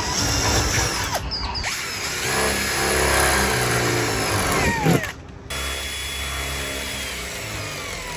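Power drill with a 5 mm bit drilling holes through the solar-panel mounting brackets into an aluminium caravan roof. It runs in several goes with short breaks about a second in and about five seconds in, the motor's pitch falling as it winds down before the second break.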